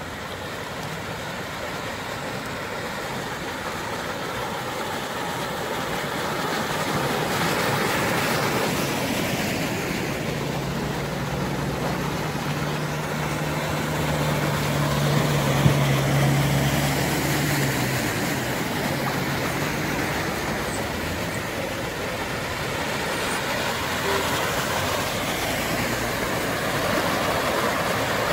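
Cars driving slowly through deep floodwater on a road, tyres pushing and splashing through the water with a steady rushing sound and engines running. For several seconds in the middle, a low engine hum stands out as a vehicle passes.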